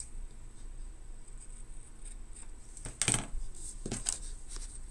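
Light handling clatter of metal scissors and craft tools on a plastic cutting mat: one sharp clink about three seconds in, then two softer clicks about a second later.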